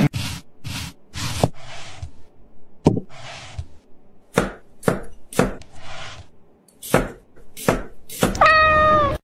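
Knife chopping food on a cutting board in single, irregularly spaced strokes, with a few short scraping or rustling passes in between. A brief high, slightly falling tone comes near the end.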